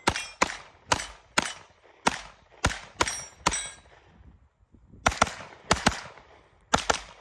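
Brigade BM-9 AR-pattern 9mm pistol fired semi-automatically: a quick string of about eight shots at roughly two a second, a pause of over a second, then several more shots.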